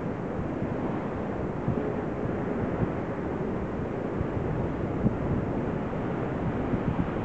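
Wind buffeting the camera microphone over the steady wash of surf breaking on rocks and sand, with a couple of short low thumps from gusts.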